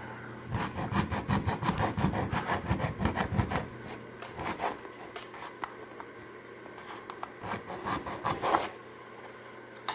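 An abrasive hand tool scraping back and forth on the wooden porch pillar in quick strokes for about three and a half seconds, then in scattered strokes, with another short run near the end.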